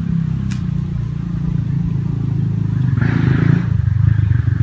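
A motor vehicle's engine idling, a steady low rumble of even pulses.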